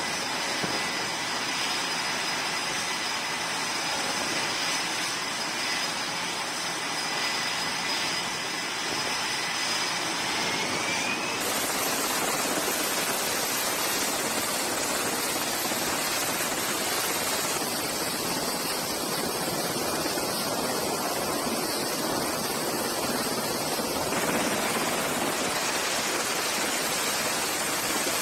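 Loud, steady turbine engine noise of aircraft running on a carrier flight deck. A thin high whine rides on it through the first third and cuts off abruptly at an edit. After that the noise goes on without the whine, while a navy helicopter turns its rotors on deck.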